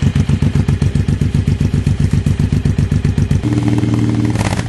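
Suzuki Boulevard M109's 1,783 cc V-twin idling with a deep, loping beat through an aftermarket stainless 2-into-1 exhaust. About three and a half seconds in, it is held briefly at higher revs. It drops back to idle near the end with a short sharp crack.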